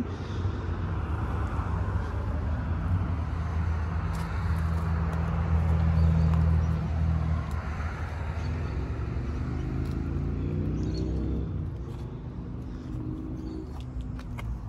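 Motor vehicle traffic: a vehicle engine hums steadily, loudest about six seconds in, then an engine note rises in pitch twice as a vehicle accelerates in the second half.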